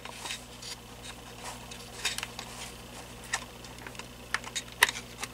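Scattered light clicks and taps of plastic fan parts and the power cord's strain relief being handled, with the sharpest click near the end.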